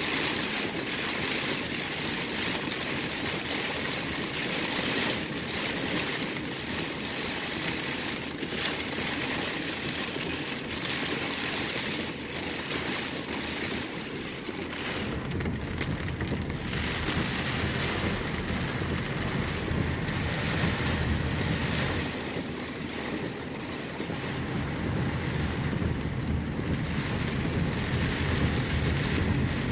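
Storm rain and wind on a car, heard from inside the cabin: a steady hiss, with a deeper rumble that builds about halfway through.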